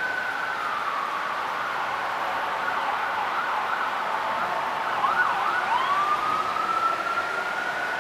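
An emergency vehicle siren sounding in a slow rising and falling wail, changing to a faster warble in the middle with one quick dip, then climbing slowly again, over steady background noise.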